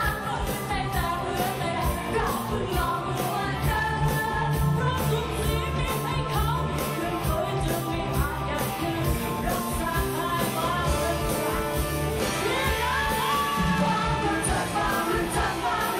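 Live pop-rock band playing over a stage sound system, with singers singing into microphones over a steady drum beat and bass.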